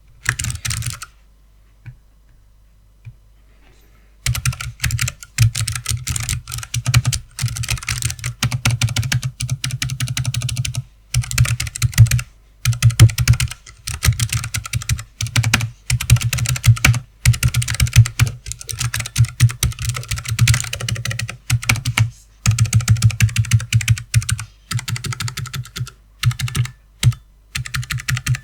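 Keychron K1SE low-profile mechanical keyboard with clicky blue optical switches being typed on: a short run of key clicks at the start, then after a pause rapid continuous clicking from about four seconds in, in runs broken by brief pauses.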